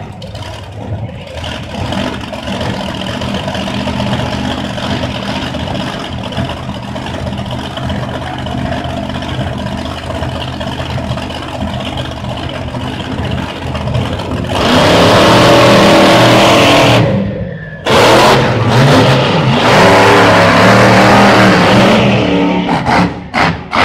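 Monster truck engines running with a steady rumble at the start line, then a sudden loud rise to full throttle about fourteen seconds in as the trucks launch down the drag strip. The sound stays loud, with a brief dropout near seventeen seconds.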